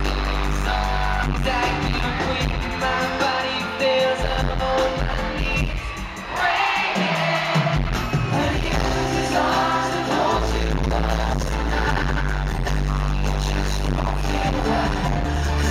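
Live pop concert heard from the audience: a male singer sings the lead over the band's backing and bass. The bass drops out briefly about six seconds in, then comes back.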